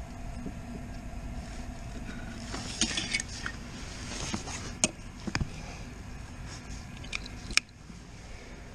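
Clicks and clinks of plastic power connectors and cables being handled and fitted at an electric motorcycle's charging port, with a few sharp snaps about three, five and seven and a half seconds in.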